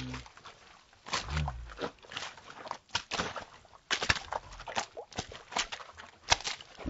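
Hiking boots splashing and squelching through mud and shallow puddles, an irregular run of wet footsteps.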